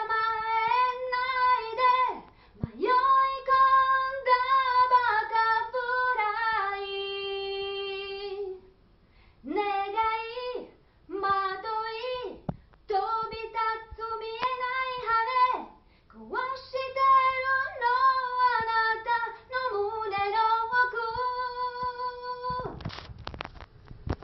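A woman singing a Japanese pop song alone with no accompaniment, in phrases broken by short pauses, with some long held notes. A short burst of noise comes near the end.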